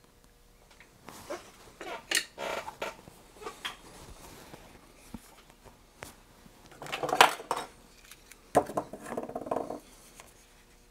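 Clinks and rattles of small metal tools and parts being handled on a workbench. They come in three short clusters, the loudest about seven seconds in.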